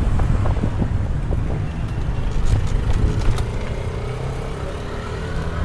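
Road traffic noise with a low, steady rumble. About halfway through, a vehicle engine's hum comes in.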